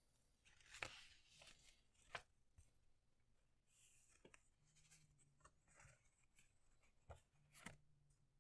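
Faint rustling and crinkling of a folded paper airplane being handled and opened out, with a few sharp paper ticks along the way.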